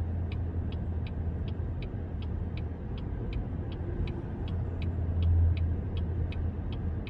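A steady low rumble with a fast, even ticking, about three ticks a second, over it.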